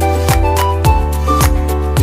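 Background music with a steady beat of about two strokes a second under a melody of held notes.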